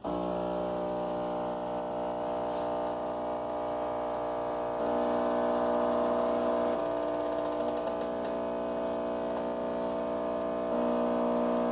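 Miele C5200 espresso machine's water pump humming steadily during its start-up rinse cycle. The hum starts abruptly and gets a little louder for a couple of seconds midway and again near the end.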